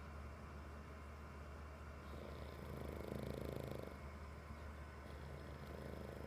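Pug snoring in its sleep: one long snore swells from about two to four seconds in, and the next begins near the end, over a steady low hum.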